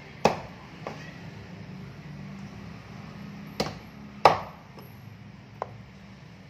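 Large knife chopping half-grilled chicken into small pieces on a wooden chopping block: a few sharp, unevenly spaced chops, the hardest about four seconds in.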